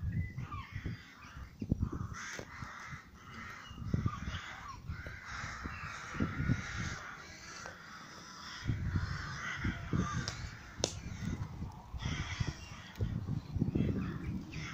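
A flock of crows cawing over and over, many calls overlapping, with irregular low thuds close to the microphone.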